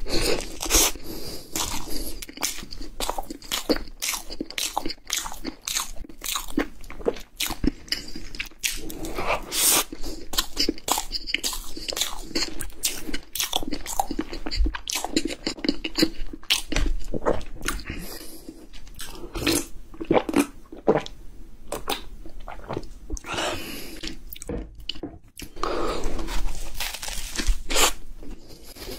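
Close-miked eating: a man biting and chewing red velvet cake and then a cream-filled puff pastry, with many sharp, irregular mouth clicks, wet smacks and crunches.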